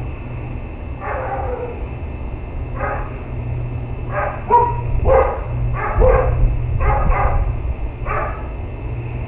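A dog barking repeatedly, about eight short barks at irregular intervals. A steady low rumble runs underneath.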